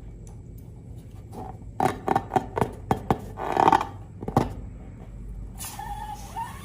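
Slime being handled: a quick run of sticky clicks and squelches for about three seconds, then a hissy rubbing with short squeaks near the end.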